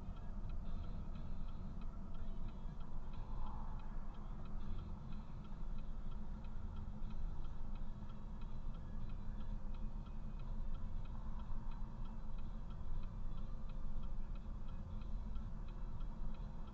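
A car's indicator flasher ticking steadily and evenly inside the cabin, over a low steady rumble.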